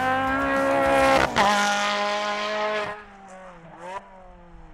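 Ferrari racing car's V8 engine at high revs, its note climbing, then dropping sharply about a second and a half in and sagging away until it fades about three seconds in. A few faint, short revs follow near the end.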